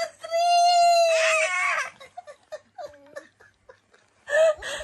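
Playful laughter: a long high-pitched squeal held on one note for nearly a second, running into giggling, then a short burst of laughter again near the end.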